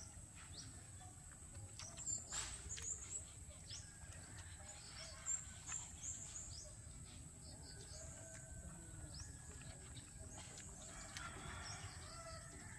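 Chickens clucking faintly in the background, with a few soft clicks and scrapes as hands scoop meat from a split young coconut.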